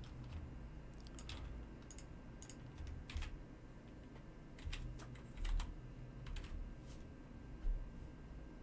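Computer keyboard being typed on: a scatter of separate, faint key clicks at an irregular pace.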